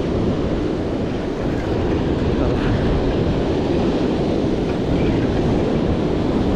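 Steady wind rumbling on the microphone, with surf breaking on the beach underneath.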